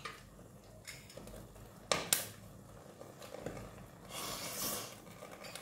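Quiet meal sounds: chopsticks and a spoon clicking against bowls and a metal pot, with one sharper click about two seconds in and a softer noise of eating near four seconds in.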